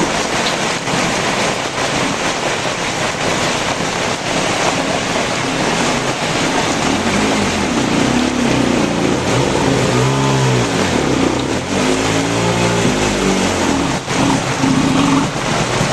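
Heavy rain pouring steadily. From about halfway in, a motor vehicle's engine runs under the rain, its pitch rising and falling several times.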